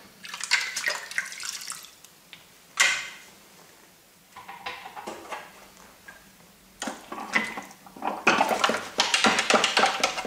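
Hands sloshing and scrubbing hard plastic toy parts in a sink of soapy water, with irregular splashes and small plastic clatters. There is one sharper knock about three seconds in, a quieter spell in the middle, and busy splashing and scrubbing near the end.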